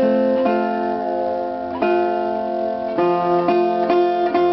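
Resonator guitar (Dobro) being fingerpicked, with ringing notes and chords that change about every second.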